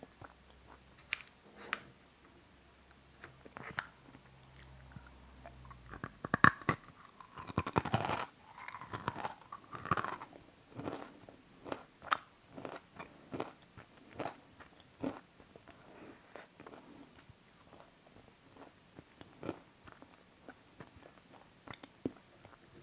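A person biting and chewing crunchy chocolate-coated sweets, in scattered crunches, with a louder run of dense crunching about a third of the way in.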